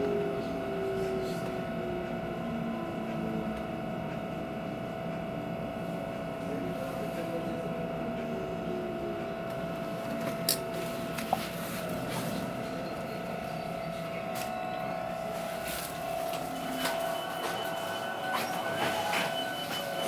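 Inside an electric commuter train slowing into a station: the drive's whine falls in pitch over the first few seconds above a steady hum. A few clicks and knocks follow as it comes to a stop.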